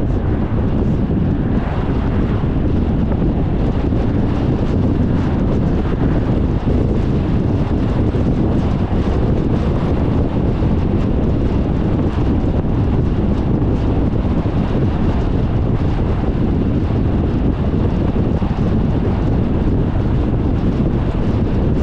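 Steady road and wind noise from a car driving at highway speed, with wind rumbling on the microphone.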